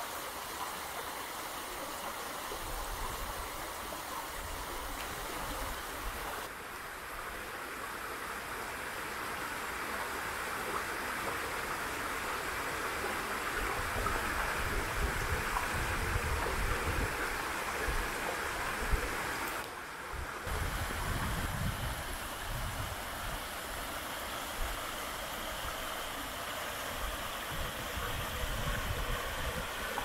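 Steady rush of running water from a forest stream and waterfall, with an uneven low rumble beneath it.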